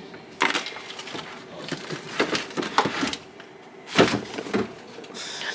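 Items being handled on the shelves of an open refrigerator: scattered knocks and clatters, the loudest about four seconds in.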